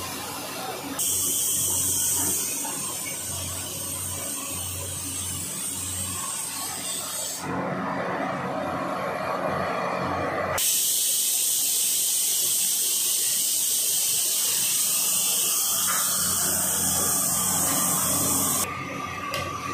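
French fries deep-frying in a kadai of hot oil, sizzling steadily. The tone of the sizzle shifts abruptly a few times.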